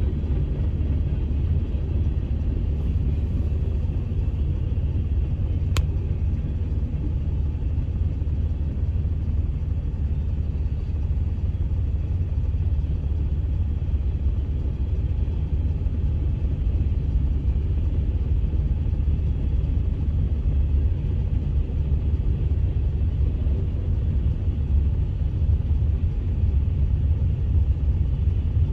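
Freight train rolling across a grade crossing, heard from inside a stopped car as a steady low rumble.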